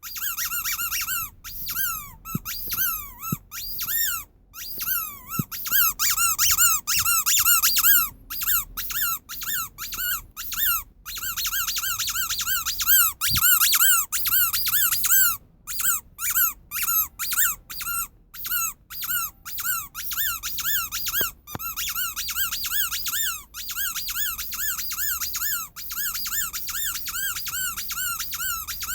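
Rubber sheep squeaky toy squeezed over and over: a fast run of short squeaks, each rising and falling in pitch, two or three a second with brief pauses between runs.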